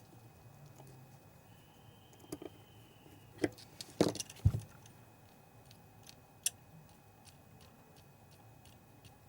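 Scattered small clicks and knocks of the replacement colour wheel motor assembly being handled and seated inside a DLP projector, loudest in a quick cluster about four seconds in.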